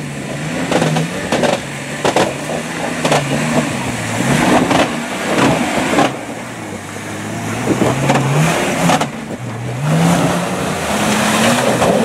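Range Rover engine revving up and dropping back again and again as the 4x4 claws up a rocky track under load, with sharp knocks and cracks from the tyres and underbody on the rocks. The revs climb highest a little after the middle and again near the end.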